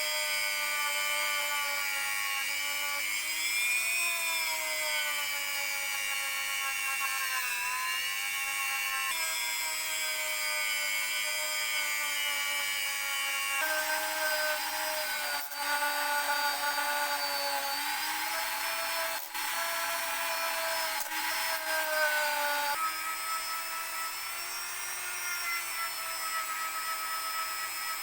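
An electric power tool's motor running steadily, a whine of several pitched tones that drifts slightly in pitch. It changes abruptly a few times, as at cuts between takes.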